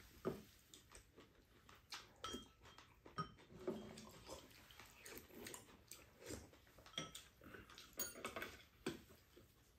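Quiet eating sounds: chopsticks and spoons clicking and scraping against ceramic bowls, with chewing and slurping mouth sounds in between.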